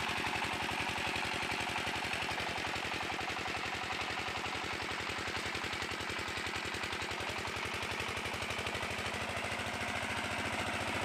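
Diesel engine of a walk-behind tractor running steadily, with an even, rapid firing rhythm.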